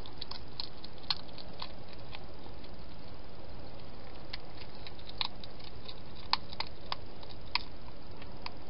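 Wild hedgehog eating from a dish: irregular sharp crunching clicks of chewing, a dozen or so spread unevenly, over a steady hiss.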